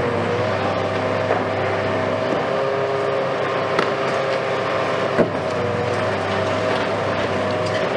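Hitachi Kiesel KMC520 high-reach demolition excavator running steadily, its engine and hydraulics giving a hum with whining tones that shift in pitch as the boom works. There are two sharp knocks, about four and five seconds in.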